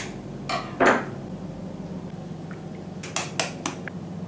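Chicken egg cracked against a glass mixing bowl: a few sharp taps, the loudest about a second in, then several quicker, lighter clicks of eggshell against the glass near the end.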